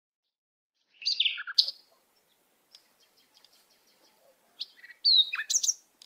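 European robin singing: two short phrases of high, quickly varying notes and slurred glides, the first about a second in and the second, louder and ending in very high notes, near the end.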